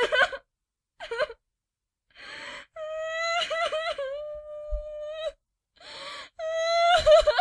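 A woman crying: two short sobs, a gasping breath in, then a long, wavering wail, another gasping in-breath and a second wail near the end.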